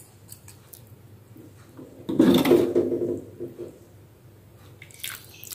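Metal ladle scooping thick coconut-milk cassava-leaf stew from an aluminium wok and pouring it into a glass bowl, with soft scrapes, splashes and light clinks. The loudest stretch comes about two seconds in and lasts over a second.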